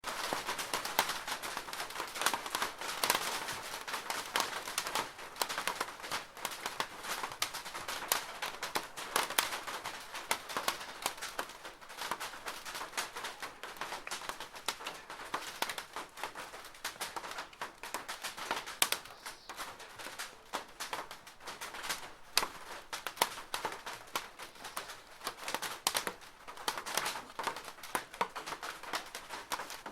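Light rain pattering on a plastic roof: a steady stream of small, irregular drop ticks over a soft hiss.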